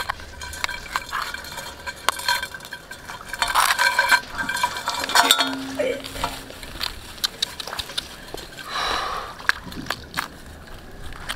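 A metal knife scraping and tapping inside an iron kadai holding live mud crabs: irregular clicks and scrapes against the pan and the crab shells, busiest around four seconds in, with a longer scrape near the end.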